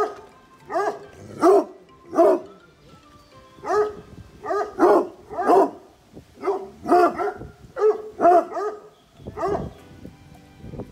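A pack of tricolour Anglo-French hounds barking: a quick, irregular run of about fifteen short barks, each rising and falling in pitch.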